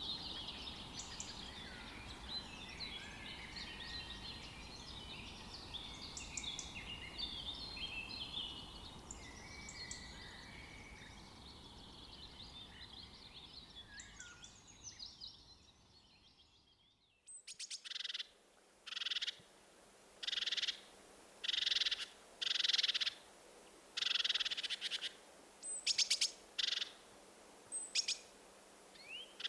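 Dense chorus of many small birds chirping and singing together over a steady background hiss, fading out. Then a series of short, harsh, buzzy calls repeated about once a second.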